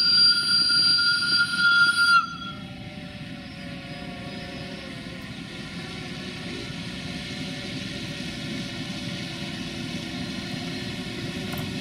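The whistle of a CFR Marfă class 060-DA (LDE2100) diesel locomotive blows one steady high note and cuts off about two seconds in. After it, the locomotive's Sulzer diesel engine runs as it approaches, growing slowly louder.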